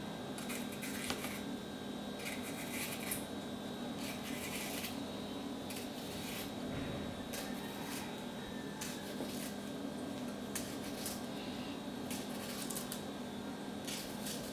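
Small knife slicing a green bell pepper held in the hand: a run of irregular crisp cuts and snaps through the flesh, over a steady low hum.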